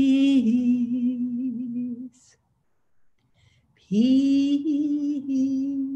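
A woman's voice singing or chanting two long held notes of about two seconds each, with a short pause between them. The second note slides up into its pitch at the start.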